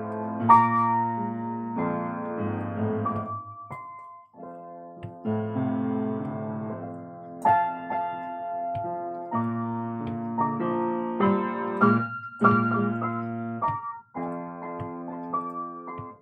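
Keyboard played with a piano sound: sustained chords changing every second or two, with short breaks about four, twelve and fourteen seconds in.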